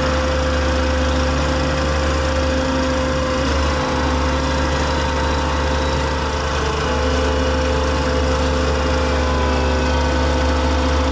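Farm machinery engine running steadily under load, a deep even rumble with a steady whine over it.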